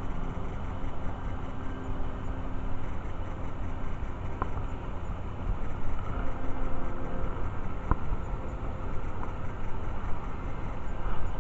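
Small stream rushing steadily over a cascade of white water, a dense rumbling noise. Two faint clicks sound about four and eight seconds in.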